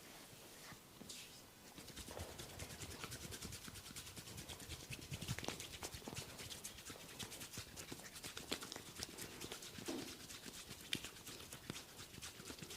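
Close-miked fingers rubbing and working on skin, a dense run of fine crackles and clicks, with a few sharper ones about five and ten seconds in.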